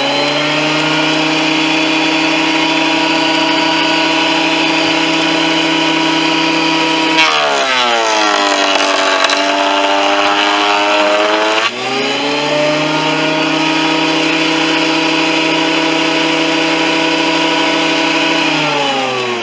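Performax 15-amp benchtop thickness planer running with a steady whine. About seven seconds in its pitch drops as a board feeds through the cutterhead, and the motor bogs under the cut for about four and a half seconds before rising back to full speed. Near the end the pitch falls as it winds down.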